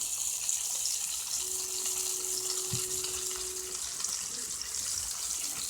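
Catfish sizzling in a frying pan: a steady, even hiss. A faint steady hum comes in for a couple of seconds in the middle, with a soft knock.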